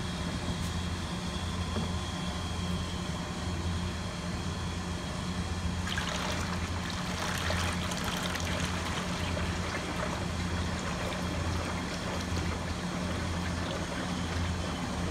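Used deep-fryer oil pouring from a plastic bucket into a funnel and jug, starting about six seconds in and running on as a rough, splashing trickle. Under it is a steady low hum from kitchen compressors.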